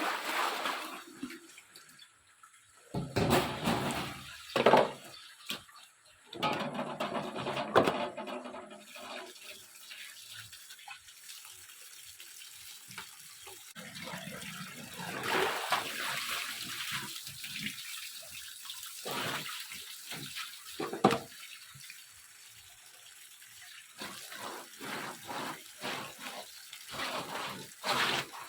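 Water running and splashing in a sink in uneven bursts with short pauses, as vegetables are washed by hand.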